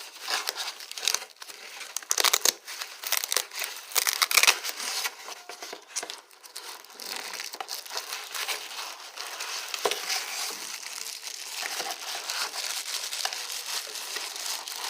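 Packaging being crinkled and rustled by hand as a new camcorder is unwrapped, with louder crackling in the first few seconds, then steadier rustling.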